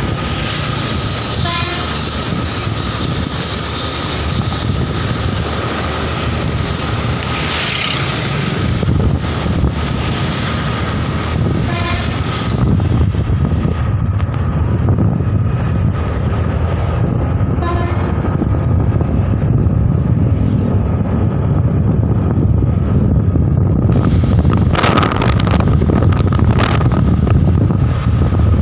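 Motor scooter riding in traffic: a steady engine and road rumble with wind on the microphone, and a few short horn toots.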